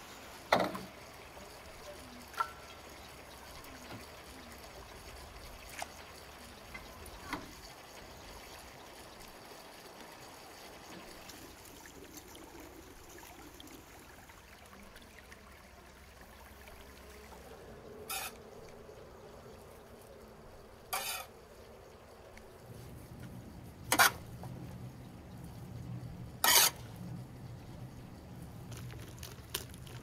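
Scattered sharp knocks and clicks, about eight of them, over a low steady background; the loudest come about half a second in and twice in the last few seconds.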